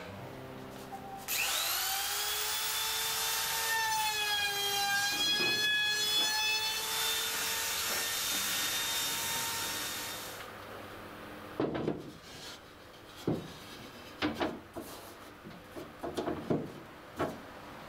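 Handheld jigsaw spinning up with a rising whine and cutting plywood for about nine seconds, then stopping. It is followed by a series of short wooden knocks as plywood floorboards are handled and fitted.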